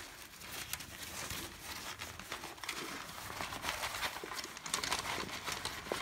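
Rustling and crinkling of a black synthetic-fabric storage bag as hands rummage inside it and draw out the table's aluminium plates, with small light ticks throughout.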